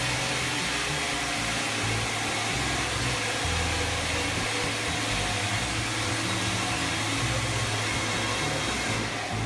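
Steady rushing mechanical noise of a large machine running without a break, with a low hum that shifts in pitch every second or so.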